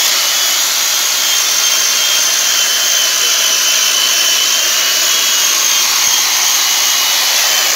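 Metro electric chainsaw cutting through a log, its motor running with a steady high whine under the noise of the chain biting into the wood.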